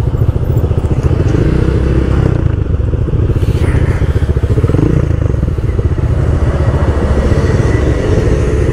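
Scooter engines idling steadily at close range, a small single-cylinder Honda Click 150i among them.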